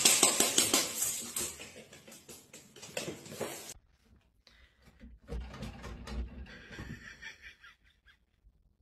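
Dry pet food rattling in a stainless steel bowl, shaken in a quick, dense clatter for about four seconds. It stops suddenly and gives way to a few faint low thumps.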